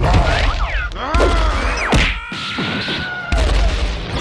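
Cartoon fight sound effects: a string of sudden hits and thuds mixed with swooping, whistle-like glides, and a held whistle-like tone for about a second in the middle.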